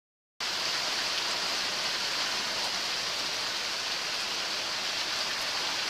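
Steady rain falling on a yard and dripping off a roof edge: an even hiss that starts about half a second in.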